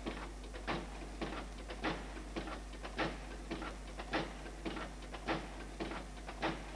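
A machine knocking in a steady rhythm, a little under two sharp knocks a second, over a constant low hum.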